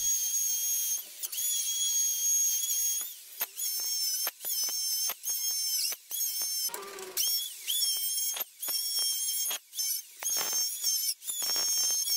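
Handheld electric plunge router running at high speed, a high-pitched whine that dips in pitch as the bit bites into the wooden board. The whine breaks off and resumes many times.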